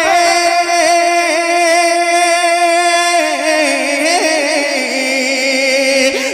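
Male naat reciter singing through a PA microphone, holding one long note with vibrato for about three seconds, then winding through ornamented melodic turns without clear words.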